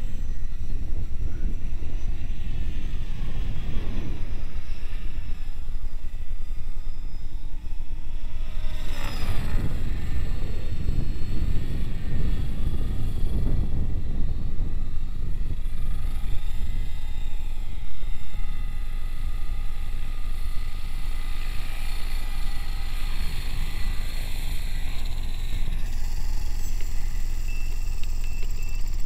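HK500CMT radio-controlled model helicopter in flight: its rotor and drive whine rises and falls in pitch as the speed changes, over a steady low rumble.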